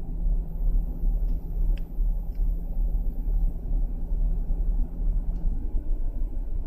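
Low rumble of a stopped car idling, heard from inside the cabin, with a steady hum that stops about five and a half seconds in and a few faint ticks.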